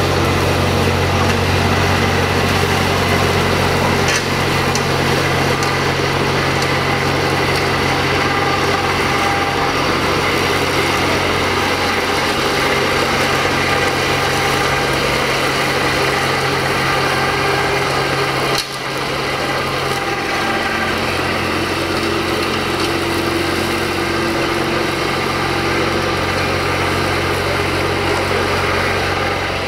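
Universal DTC445 tractor's diesel engine running steadily at a constant speed while it drives a rear-mounted rotary drum mower across grass. About two-thirds of the way through there is a single sharp click, and the level drops slightly.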